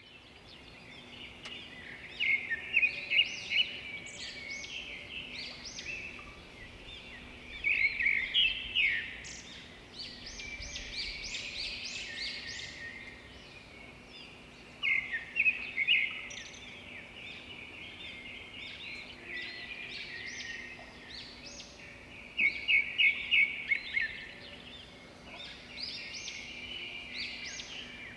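Birds chirping and singing, with several bursts of fast, loud trills among many shorter calls, over a faint steady hum.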